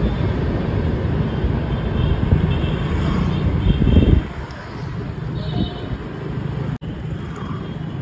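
Wind rumble on the microphone and road and engine noise from riding a two-wheeler through town traffic, surging loudest around four seconds in and then settling lower.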